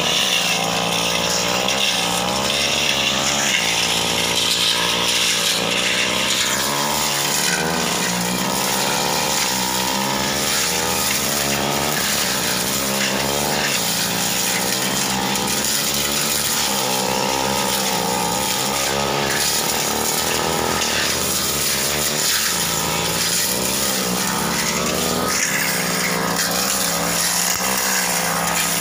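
Backpack brush cutter running continuously while cutting through dense ferns and scrub, its engine pitch wavering up and down as the blade meets the growth.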